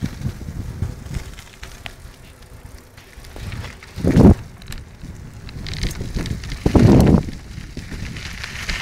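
Mountain bike rolling over a gravel forest track: steady tyre crunch and rattle, with two brief loud rumbles about four and seven seconds in.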